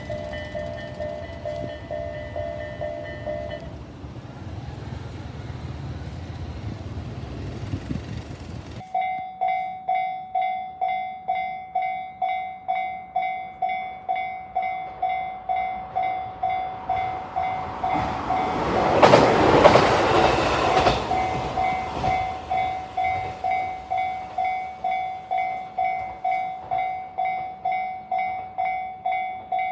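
Train rumbling past a Japanese level crossing, its warning bell tones stopping about four seconds in. After a cut, another crossing's electronic warning bell rings a steady repeating 'kan-kan' just under twice a second, while a train rushes through, loudest a little past the middle.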